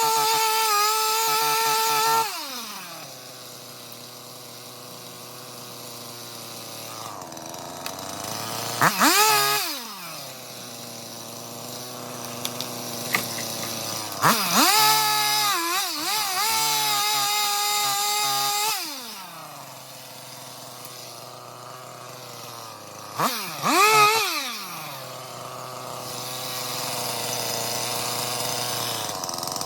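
Two-stroke Stihl chainsaw at full throttle, dropping to idle about two seconds in. It is then blipped up and let back down several times: once briefly, once held for a few seconds, and twice quickly near the end, idling in between.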